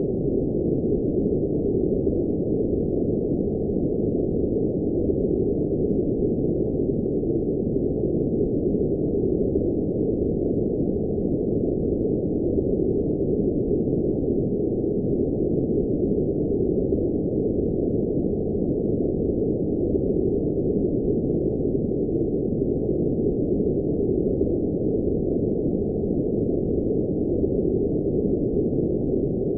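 Steady synthetic noise, sold as blue noise, but with no treble at all: a dull, muffled hiss sitting in the low and middle range and cut off sharply above it, unchanging.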